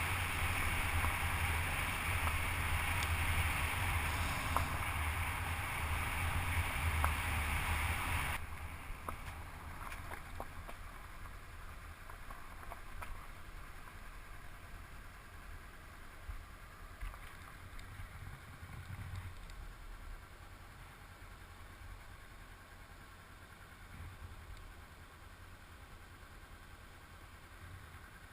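Honda CB500X motorcycle's parallel-twin engine running with wind on the microphone while riding, a steady low rumble under a noisy rush. About eight seconds in the sound drops suddenly to a much quieter low rumble.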